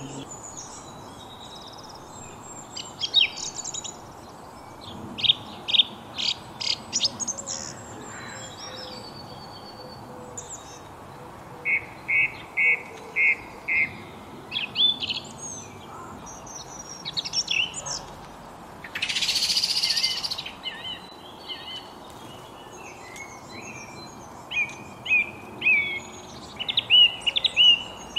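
Several birds singing and chirping in short phrases over a steady hiss of background noise, with a run of five evenly spaced notes about halfway through and a hiss-like burst lasting about a second and a half a little later.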